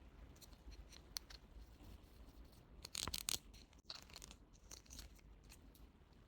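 Toy packaging being handled and opened by hand: scattered small crinkles and clicks, with a short louder burst of crackling about three seconds in.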